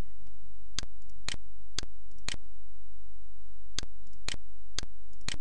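A steady low hum with sharp clicks about two a second, in two runs of four with a pause of about a second and a half between them. The level dips briefly at each click.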